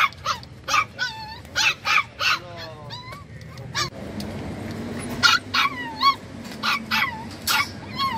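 Several dogs barking and yelping, short sharp barks about twice a second, some with a bending, whining pitch.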